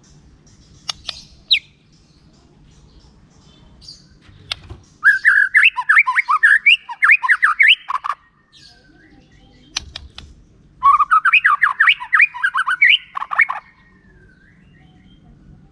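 White-rumped shama singing: a few sharp separate notes, then two bursts of rapid chattering phrases, each about three seconds long, starting about five seconds in and about eleven seconds in.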